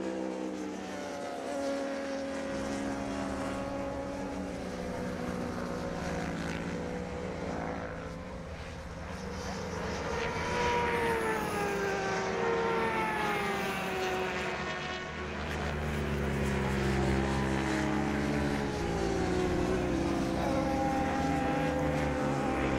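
Racing motorcycle engines running at high revs, their pitch rising and falling with gear changes and throttle as more than one bike passes on the circuit. Louder from about ten seconds in, and again from about sixteen seconds.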